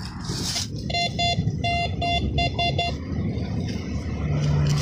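A run of about seven short electronic beeps at one pitch, in an uneven rhythm, over a low rumble. A steady low hum starts near the end.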